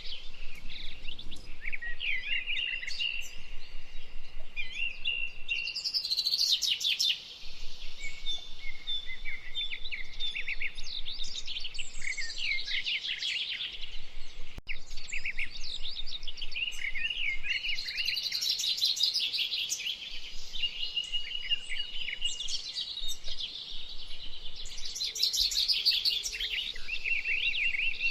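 Dense chorus of many birds chirping and calling with quick, overlapping high-pitched notes and short pitch glides, continuous throughout, with a brief dip a little past seven seconds in.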